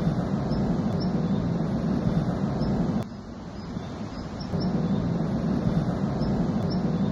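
Low, steady rumbling of a mountain debris flow and rockfall coming down the slope, dropping off for about a second and a half some three seconds in before returning. Faint high chirps repeat over it about once a second.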